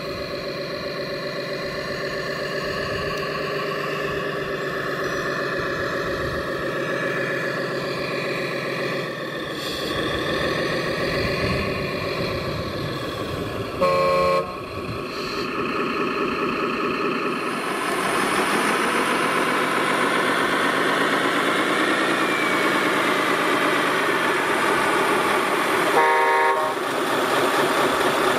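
Radio-controlled model trucks' engine sound running steadily, with two short horn toots, one about halfway through and one near the end. From about two-thirds of the way in it gets louder and hissier, with a whine that rises and then falls.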